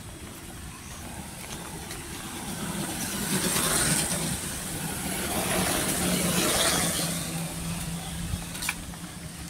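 A motorbike approaching and passing along the road: its engine hum and tyre noise swell from about two and a half seconds in, peak twice, and fade away near the end.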